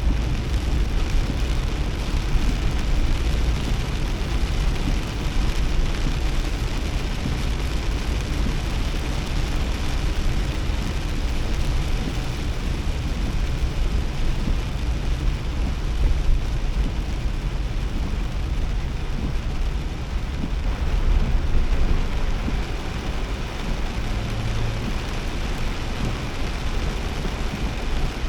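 Heavy downpour drumming on a small car as it is driven, with a steady deep rumble of road and tyre noise underneath.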